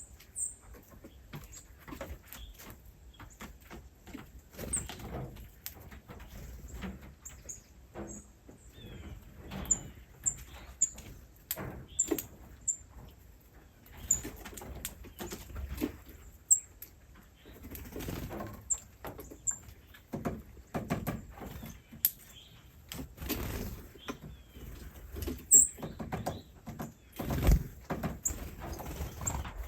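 Tiny animals giving short, very high-pitched chirps, repeated irregularly, over frequent rustling, scratching and knocking.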